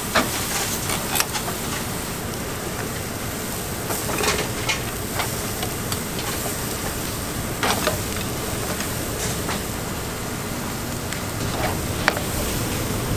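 Steady hiss and rumble of a street-food stall's rib cooking, with a few sharp clicks and knocks, the clearest about a second in, around four and eight seconds, and near the end.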